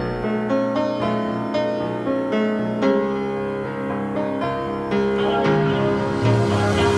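Instrumental background music with a keyboard playing a run of notes over held chords.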